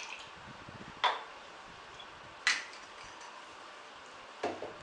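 Bar tools and bottles being handled on the counter: three sharp clinks of metal and glass about a second and a half apart, the last one heavier and doubled, as a steel jigger, shaker tin and liqueur bottles are set down and picked up between pours.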